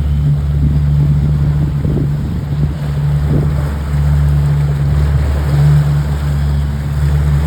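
A motorboat's engine runs steadily with a low, even drone, and water rushes and splashes along the hull.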